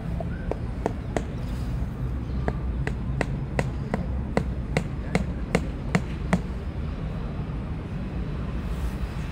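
A small signpost being hammered into the ground: about fifteen sharp strikes, two to three a second, stopping after about six seconds, over a steady low background rumble.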